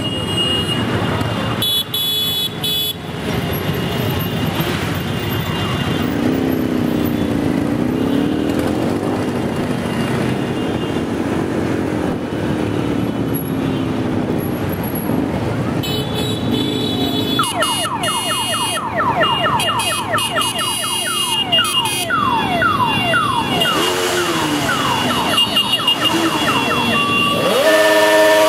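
Many motorcycle engines running together in a slow group ride, with riders revving now and then. Past the middle, a fast repeating warbling alarm-like tone sounds for several seconds.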